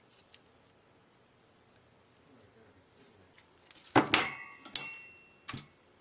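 A metal CPU heatsink being handled and set down on a desk: a couple of light clicks, then three sharp knocks about four to five and a half seconds in. The middle knock carries a brief metallic ring from the finned metal block.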